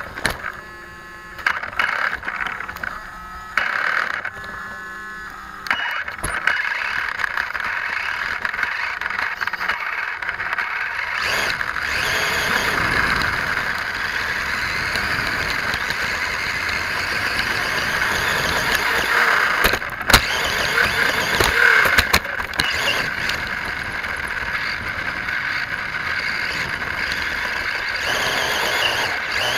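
Vaterra Twin Hammers RC rock racer's electric motor and drivetrain whining in short throttle bursts, then running continuously as the car drives over dirt, heard close from its onboard camera. A couple of sharp knocks come about two-thirds of the way through.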